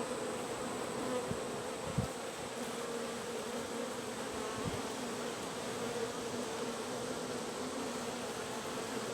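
Honey bees buzzing in a steady hum around an opened hive as its frames are inspected, with a faint knock about two seconds in.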